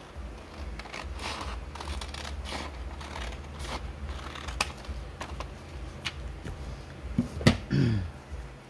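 Scissors snipping paper: a string of short cuts and paper rasps, with a sharp click about seven and a half seconds in and a short falling tone just after it.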